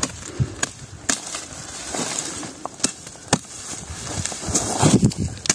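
A hand tool cutting suckers off the base of a young olive tree's trunk: several sharp snaps spread over a few seconds, with rustling of leaves and twigs in between.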